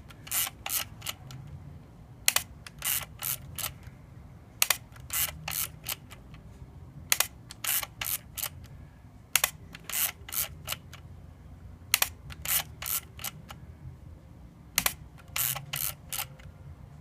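Olympus XA2 compact camera being fired and wound on over and over: a shutter click followed by a quick run of ratchet clicks from the thumbwheel film advance, about every two and a half seconds. This is a test for the camera's intermittent shutter misfire, in which the shutter sometimes fails to fire when the button is pressed.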